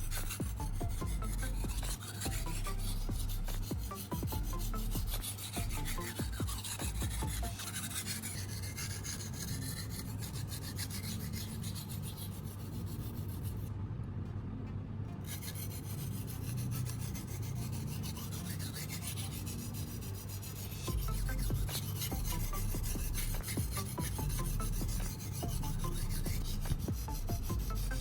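Steel kitchen knife blade being drawn over and over across the wet fine-grit side of a sharpening stone, a steady rasping scrape as the edge is polished.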